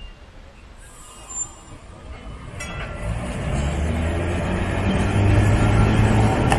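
Vintage Milan Class 1500 tram, car 1582, running past close by: a low rumble of wheels on rails with a steady low motor hum, swelling from faint to loud from about two and a half seconds in.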